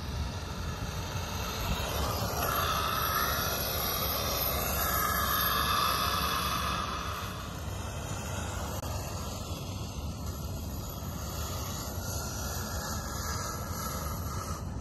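Electric radio-controlled truck (HPI WR8 on a 2S LiPo battery) running past at speed: its motor and tyre noise swell over a few seconds, then fade as it pulls away. Under it is a steady rush of wind on the microphone.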